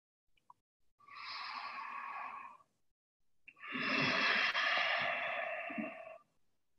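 A person breathing deeply close to a microphone: two long breaths, the second louder and longer, like a sigh.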